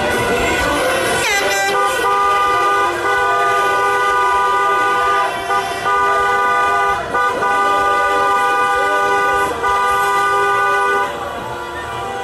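Car horn held down in long steady blasts, broken by a few short gaps and cutting off near the end, as in celebratory honking.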